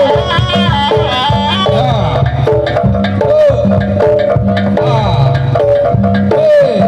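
Jaranan accompaniment music: hand drums beat a dense, driving rhythm under a high melody that moves in steps and slides between notes.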